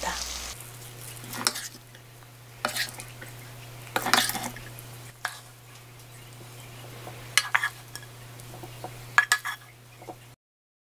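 Wooden spoon scraping and knocking against a coated frying pan as stir-fried garlic scapes are scooped out onto a plate: a handful of short, separate scrapes and taps over a faint steady low hum.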